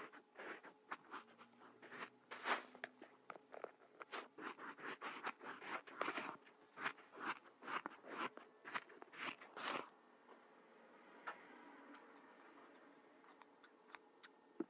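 Kinetic sand crunching and crumbling in quick, dense crackles, close up, for about ten seconds, then only a few faint ticks.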